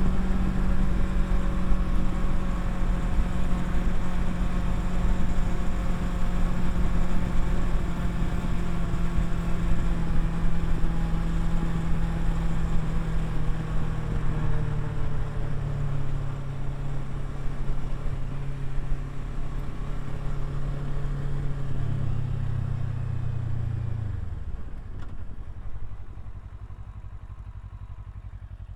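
Kawasaki Versys 650's parallel-twin engine running under way, its note sinking gradually and stepping down twice as the bike slows. Near the end the engine sound drops away and it goes much quieter.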